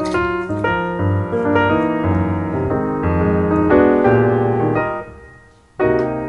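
Piano music: chords and melody over a bass line, fading away about five seconds in before a new phrase starts.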